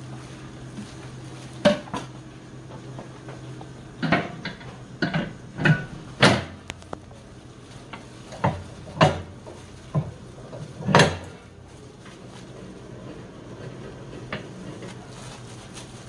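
Metal clanks and knocks as a dough hook is handled in a stainless steel bowl and fitted onto a bakery stand mixer's shaft: a scattering of sharp knocks, the loudest about six and eleven seconds in.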